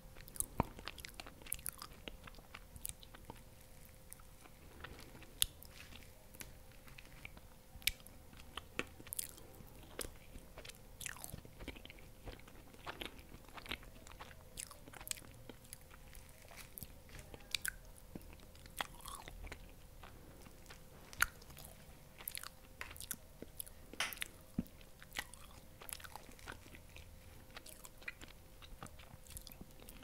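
Close-up mouth sounds of someone eating soft dessert cake: quiet chewing with many short, wet clicks and smacks scattered irregularly, over a faint steady hum.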